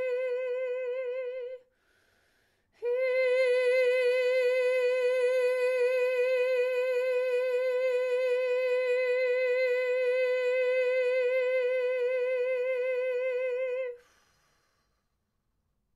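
A woman's voice toning one long held note on a single steady pitch with a slight vibrato. It breaks off about a second and a half in, a quick breath is taken, and the same note is held again for about eleven seconds before stopping.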